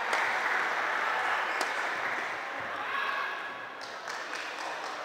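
Spectators applauding and calling out after a point is won, fading away over about three seconds, with a few sharp clicks and some voices in the echoing hall.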